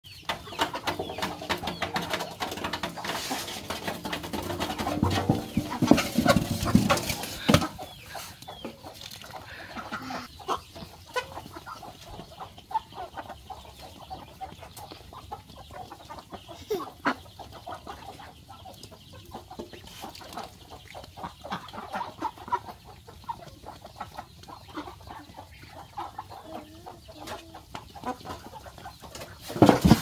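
A flock of domestic ducks crowding around feed, calling and pecking, with many small clicks; busier and louder for the first several seconds, then quieter scattered pecks and calls.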